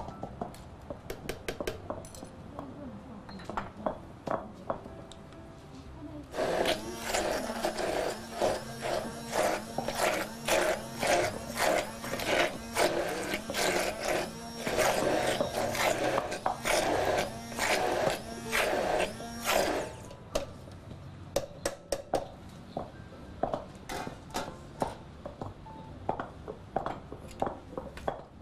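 Hand-held immersion (stick) blender running in a tall jug, puréeing red Thai curry paste. It starts about six seconds in and stops about twenty seconds in: a steady motor hum with choppy churning as the blade works through the thick paste.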